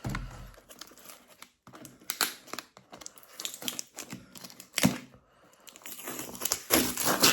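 Parcel packaging being handled and pulled apart by hand: irregular crinkling and rustling with sharp crackles, loudest near the end.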